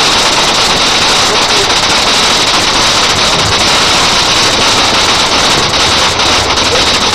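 Small fountain firework spraying a shower of sparks, with a loud, steady hiss.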